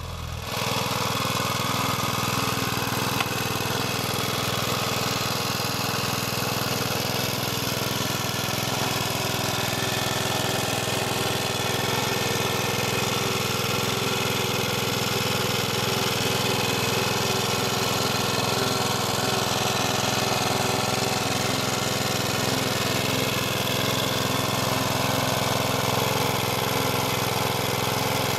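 Hayterette rotary lawn mower's Briggs & Stratton 3.5 Classic four-stroke petrol engine, just pull-started, settling within the first second into a steady, even run.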